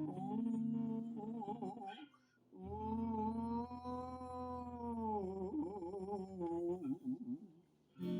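Wordless singing or humming over guitar, the voice wavering and sliding between notes, with one long held note in the middle and two short breaks.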